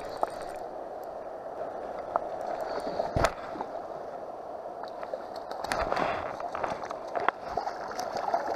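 Steady wash of river water lapping at the shore, with a sharp knock about three seconds in and a small splash in the water near the end.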